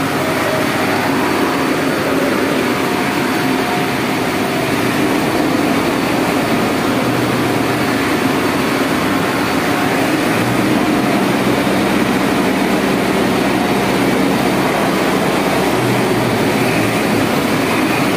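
Steady, loud din of tunnel construction machinery (engines and pumps) inside a railway tunnel being bored. A lower steady hum joins in about ten seconds in.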